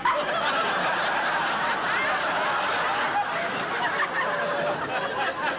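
Studio audience laughing, a steady wave of many voices laughing together.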